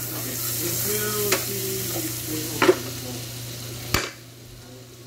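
Chopped garlic frying in melted butter in a pan, sizzling while a wooden spatula stirs and scrapes it. About four seconds in a sharp knock comes as the spatula is set down, and the sizzle then goes much quieter.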